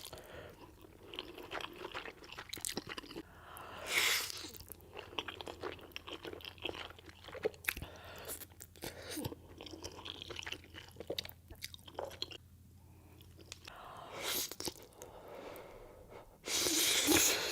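Spaghetti being chewed close to an ASMR microphone: wet mouth clicks and smacks throughout, with a louder noisy burst about four seconds in and a longer one near the end.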